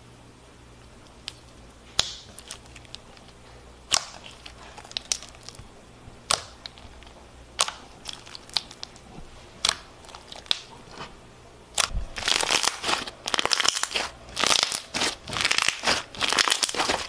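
Crunchy slime being handled: scattered sharp pops and clicks as it is poked and stretched, then, about two-thirds of the way in, dense, loud crackling and crunching as it is squeezed between the hands.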